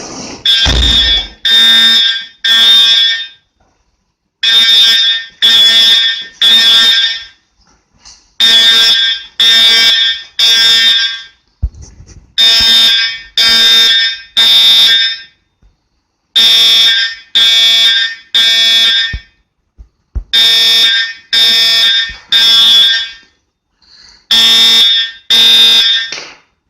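Edwards Integrity horn strobe (EST 7577 series) sounding loudly in the temporal-3 evacuation pattern. It gives three short blasts of about half a second each, then a gap of about a second and a half, and the group repeats about every four seconds.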